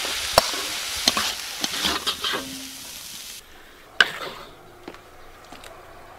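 Minced garlic and chili in soy sauce and oyster sauce sizzling in a hot wok while a metal spatula stirs and scrapes against the pan with sharp clicks. The sizzling stops abruptly about three and a half seconds in, and a loud knock of the spatula follows as the sauce is scraped out.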